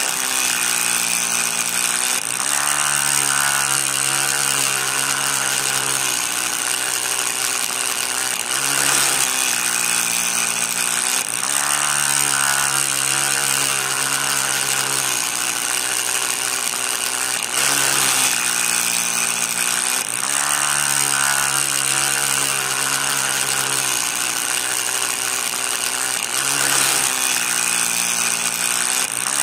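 Small electric motor spinning a miniature metal disc blade. It makes a steady whine that dips in pitch and recovers every few seconds as the blade digs into the sand.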